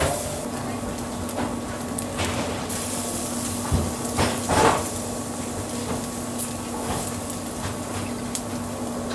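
Restaurant kitchen work: scattered knocks and clatter of utensils and wood over a steady hum and hiss, with a cluster of sharper knocks about four to five seconds in.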